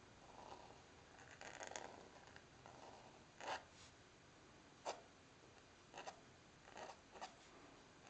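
Pointed steel nib in an oblique pen holder scratching faintly across paper in quick writing strokes, with about five short, sharper scratches in the second half.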